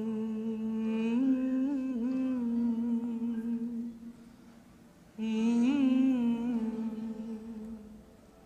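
A man humming a melody in two long held phrases, the second starting about five seconds in after a short break, with small rises and dips in pitch at the start of each.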